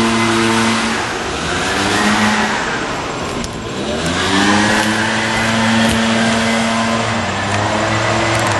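An engine running steadily, its pitch sinking a second or two in, rising again about four seconds in, then holding.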